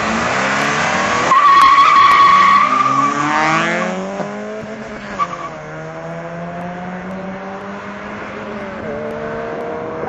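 Two hatchbacks, a Citroën Saxo and an Opel Kadett, launching from a drag-race start: engines revving, tyres squealing hard for about two seconds, then the engines rising in pitch through the gears and fading as the cars pull away.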